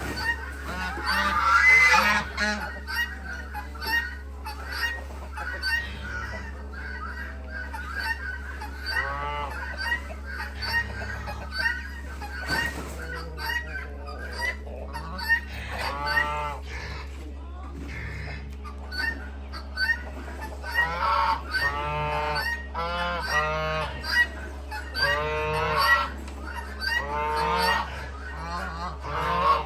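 Geese honking, many repeated calls overlapping, over a steady low hum.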